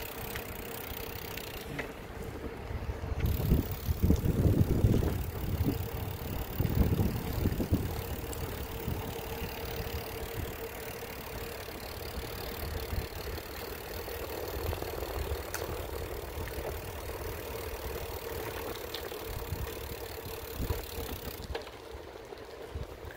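Slow-moving vehicle running with a steady low rumble and a constant hum, with gusts of wind buffeting the microphone a few seconds in.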